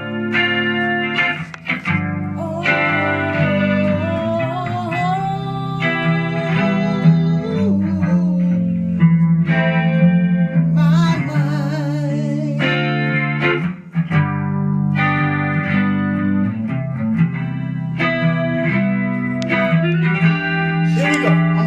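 Band music carried by guitar, an instrumental passage with no lyrics sung.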